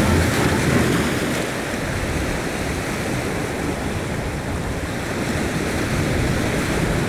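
Sea waves washing in and breaking against a rocky shore.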